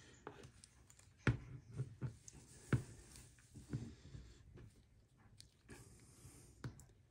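Irregular small clicks and knocks of a precision screwdriver bit and the titanium handle of a Chris Reeve Large Sebenza being worked against a stuck screw, one held fast by heavy threadlocker. The sharpest knocks come about a second and a quarter in and near three seconds in.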